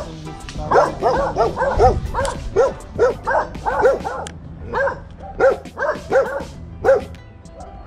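A dog barking repeatedly in a quick string of short barks, about two or three a second, falling silent shortly before the end.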